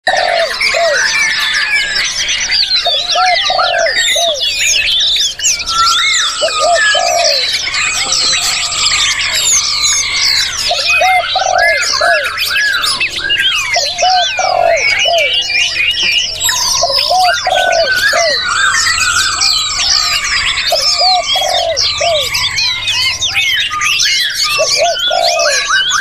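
A dense chorus of many songbirds singing over one another, with rapid chirps, whistles and trills. Short, lower call notes recur every second or two beneath them.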